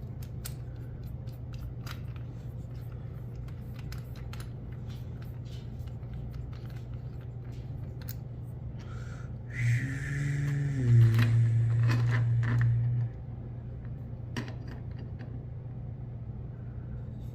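Hard plastic parts clicking and scraping as they are handled and fitted together, over a steady low hum. About ten seconds in, a voice hums a tune for around three seconds.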